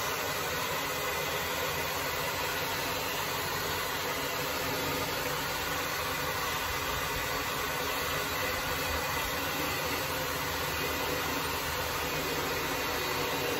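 Handheld hair dryer blowing steadily on the iced-over coil of a split-type air conditioner's indoor unit, melting the thick ice that has frozen the unit up.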